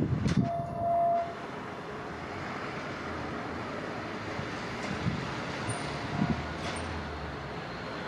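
KiHa 48 diesel railcar of the Akita Cruising Train sounding one short, steady horn blast about half a second in, then its diesel engine and wheels running steadily in the distance as it gets under way. A passing truck's rumble dies away at the very start.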